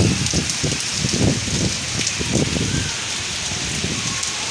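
Heavy rain pouring down on a street: a steady hiss, with uneven low surges running through it.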